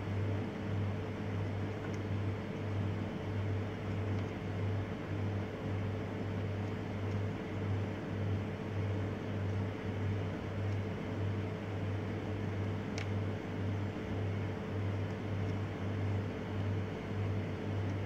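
Steady machine hum, with a deep throb pulsing a few times a second under an even whirr, and a faint single click about two-thirds of the way through.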